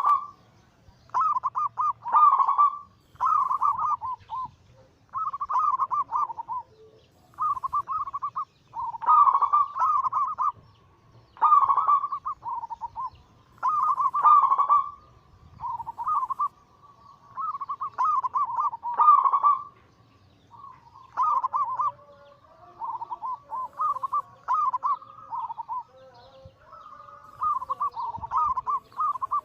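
Zebra doves (perkutut) cooing their rolling, stuttering song over and over, each phrase about a second long with short pauses between. In the second half the phrases overlap, as if more than one bird is singing.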